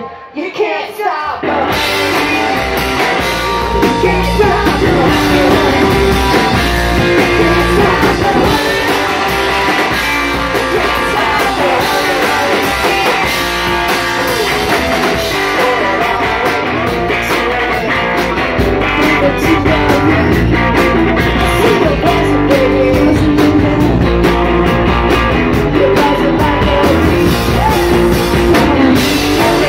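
Rock band playing live: electric guitars, bass guitar and drums, with women singing. After a brief drop about a second in, the full band comes back in and plays on steadily.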